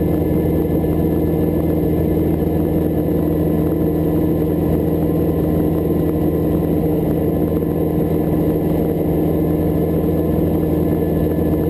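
Hughes 269 light helicopter running steadily: its four-cylinder piston engine and rotors make a constant, unchanging drone.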